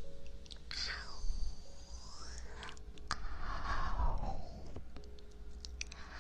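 Close-up ASMR trigger sounds: soft rubbing swishes that sweep up and down in pitch, with scattered light clicks.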